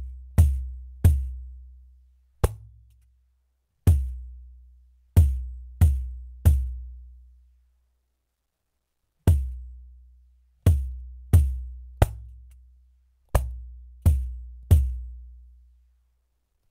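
Pandeiro, the Brazilian frame drum, struck in an uneven rhythm of single hits and quick groups of three. Each hit is a sharp strike followed by a deep boom that fades over a second or so. There is a pause of nearly three seconds midway.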